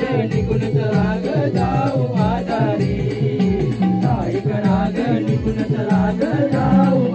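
Marathi Naman folk song: a voice singing a winding melody over steady mridang drum strokes and other percussion keeping the beat.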